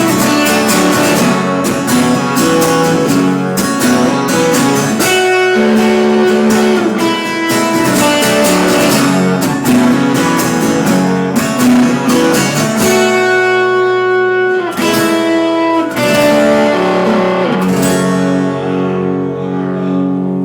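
Guitar playing a blues tune, strummed and picked notes and chords, with the sound thinning out and ringing down near the end as the song closes.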